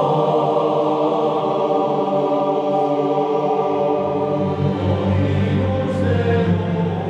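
Background music: a slow, sustained chant sung by a choir of monks' voices, with a deeper low note coming in about five seconds in.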